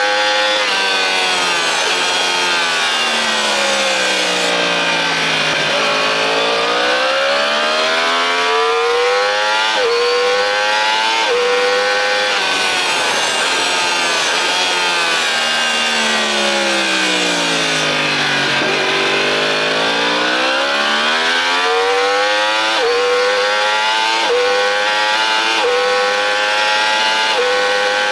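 Sport motorcycle engine revving hard, heard onboard over wind rush. The pitch climbs through the gears with a quick drop at each upshift, several times near the end. Twice the revs slide down slowly as the bike slows for a corner, then climb again.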